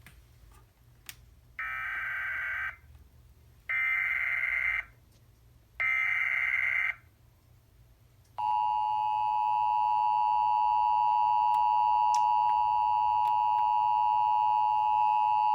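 Emergency Alert System header: three short raspy bursts of SAME data tones, about a second each and two seconds apart, that encode the alert, here a flood warning. Then, about eight seconds in, the EAS attention signal starts: a steady two-tone alarm that runs about eight seconds and comes before the spoken warning.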